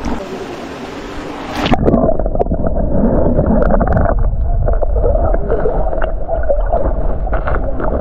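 Rushing stream water heard from a waterproof camera at the surface of a rocky pool; a little under two seconds in the camera goes underwater and the sound turns muffled: a deep rumble and gurgling of moving water with scattered small clicks.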